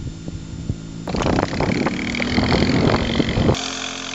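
Off-road motorcycle engine running, with wind noise on the microphone. The sound changes abruptly twice as one short clip cuts to the next, and the engine note rises a little in the middle stretch.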